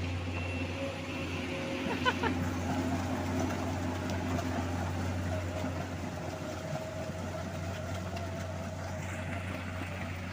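Heavy diesel engines of a stone dump truck and an excavator running steadily, with a brief sharp metallic sound about two seconds in.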